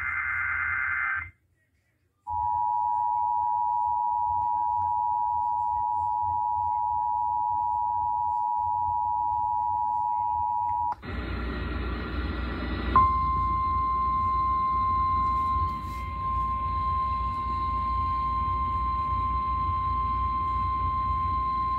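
Emergency Alert System test signal: the end of a screechy SAME data-header burst, then the two-tone EAS attention signal held steady for about nine seconds. It is followed by a hissy, humming broadcast feed carrying a single steady tone.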